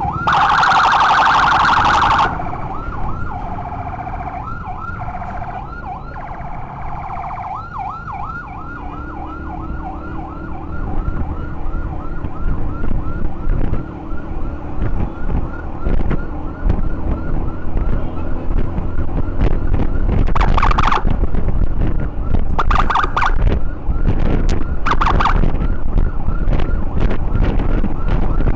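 Emergency siren on the move in a fast yelp, rising and falling about two or three times a second. Loud blaring horn-like blasts cut in at the start and several more times from about two-thirds through. Wind rush and a low engine sound run underneath.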